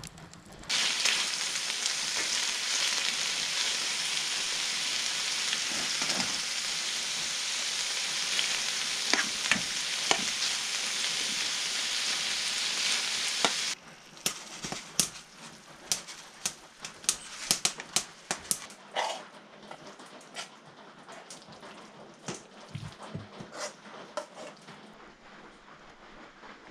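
Chopped vegetables and meat frying in a pan on a wood stove's hotplate: a loud, steady sizzle that cuts off abruptly about 13 seconds in. It gives way to quieter, irregular spitting and crackling.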